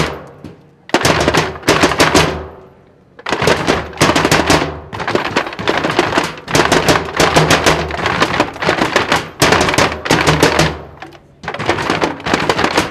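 A percussion group playing handheld wooden slatted instruments with wooden poles, a dense, rapid clatter in loud bursts that stop for short pauses about half a second in, around two and a half seconds in and near eleven seconds in.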